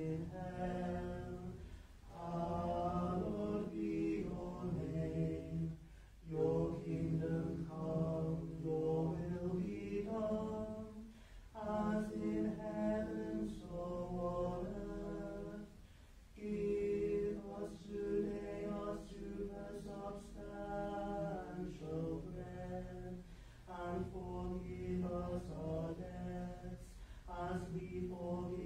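Unaccompanied liturgical chant, sung in phrases a few seconds long with short breaks between them.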